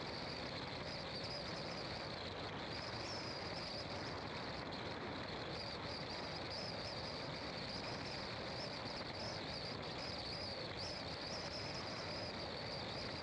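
Steady road and wind noise from a car driving at speed, with a high, wavering insect chorus from the roadside trees over it.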